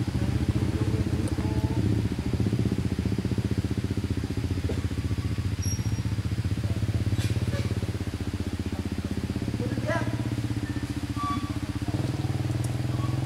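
A small engine idling steadily nearby, a low even hum with a fast pulsing beat, with a few short rising high calls about ten seconds in.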